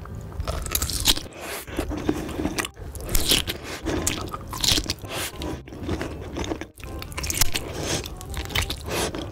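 Close-miked bites into a large sausage coated in cheese sauce: repeated crisp bites through the casing, about a second apart, with wet chewing in between.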